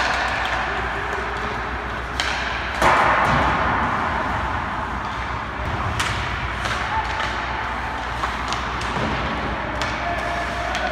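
Ice hockey practice: sharp clacks of pucks off sticks, goalie pads and boards, and skates scraping the ice, over the rink's steady low hum. The loudest is a sudden crack with a scraping hiss about three seconds in.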